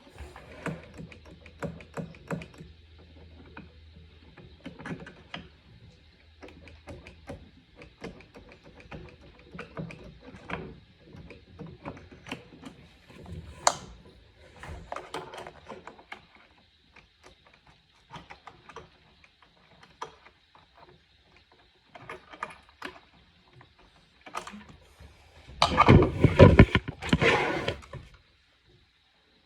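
Small clicks, taps and knocks of hand and tool work on an accordion's bass button mechanism, irregular with short pauses. About 26 seconds in comes a much louder rough handling noise with heavy thuds, lasting about two seconds.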